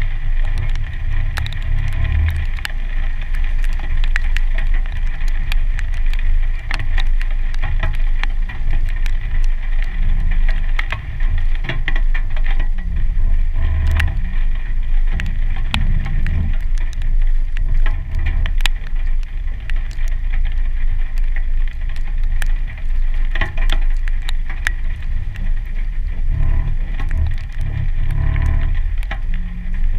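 A 2015 Jeep Wrangler's 3.6-litre V6 running at low speed through standing water on a trail: a steady low rumble that swells now and then. Frequent sharp ticks of water drops and spray hit the camera housing.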